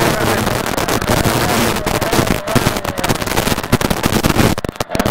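Rally car engine running hard, heard from inside the cabin on a gravel stage, under a constant crackling clatter of gravel and stones striking the car. The sound dips briefly near the end, as when the driver lifts or changes gear.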